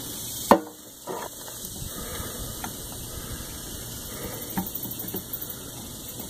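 Handling noise from work on a motorcycle's coolant crossover tube: one sharp clack about half a second in, a smaller knock soon after, then a few faint clicks over a steady hiss.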